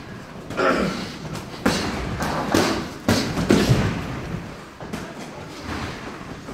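Boxing gloves thudding as sparring punches land, several irregular blows, the loudest in quick succession in the middle.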